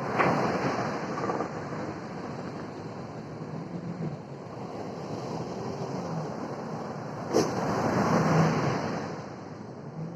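Heavy ocean surf: a wave crashes right at the start and another breaks about seven seconds in, opening with a sharp crack, with a steady wash of surf between.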